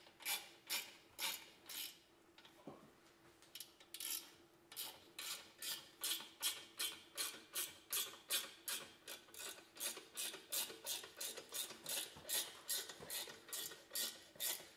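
Ratcheting wrench clicking back and forth as it tightens the clamp bolt on the turbocharger's downpipe joint, in short rasping strokes. A few strokes, a lull about two seconds in, then a steady run of about three strokes a second.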